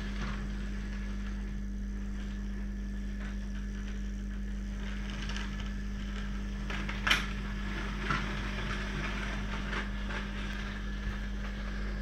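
16mm-scale narrow gauge model locomotive running round the track: a steady mechanical hum from its drive, with a few sharp clicks, the loudest about seven seconds in.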